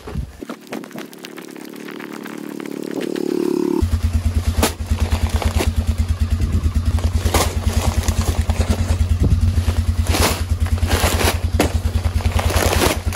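1997 Polaris Sportsman 500 ATV's single-cylinder four-stroke engine being started: a rising whirr for about three seconds as it cranks, then the engine catches and runs at an even, pulsing idle. A few short scrapes and knocks sound over the idle.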